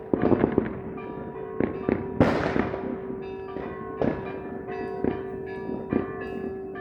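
Fireworks going off: a string of sharp bangs at uneven intervals, the loudest about two seconds in followed by a fading crackling hiss. Steady ringing tones sound underneath.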